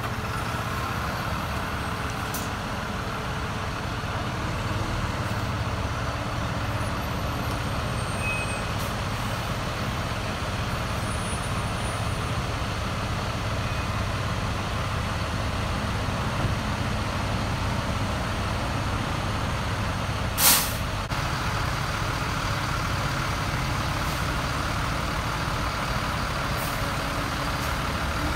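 Diesel engine of a 2017 Pierce Velocity fire engine running steadily as the truck pulls slowly out of its bay and onto the road. A short, sharp air-brake hiss comes about twenty seconds in.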